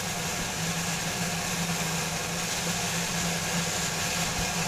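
Mixed vegetables (cabbage, carrots, bean sprouts) sizzling steadily in a hot nonstick pan as they are stir-fried, over a steady low hum.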